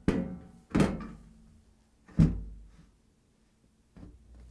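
Washer's metal top panel being closed and slid forward to lock: three knocks, the loudest about two seconds in with a low boom from the cabinet, then a few faint taps near the end.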